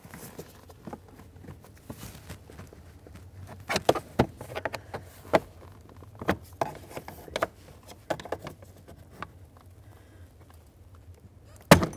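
Plastic trim tool prying at a car's lower dash trim panel: scattered light clicks and knocks of plastic on plastic, then one sharp loud snap near the end as the panel starts to come free from its clip.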